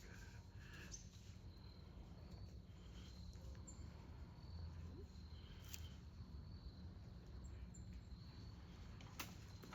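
Near silence: faint outdoor ambience with a steady low hum and faint high insect chirping. There are a couple of soft clicks, one midway and one near the end.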